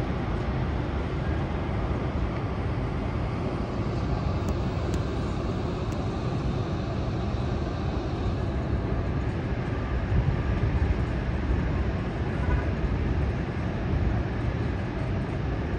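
Steady low rushing of Niagara Falls' cascading water, an even, unbroken wash of noise heaviest in the low rumble.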